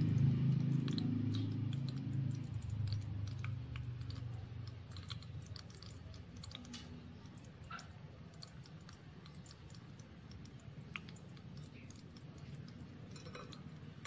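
Hot oil sizzling and crackling around a shrimp-and-squash fritter (okoy) deep-frying in a small wok. It is louder at first and settles within about two seconds to a light, irregular popping.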